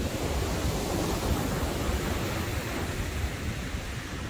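Ocean surf breaking and washing up the beach, with wind buffeting the microphone in a low rumble.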